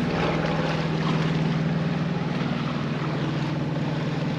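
Inboard engine of an Alberg 30 sailboat running steadily under power: a low drone with a fast, even pulse, over a hiss of wind and water.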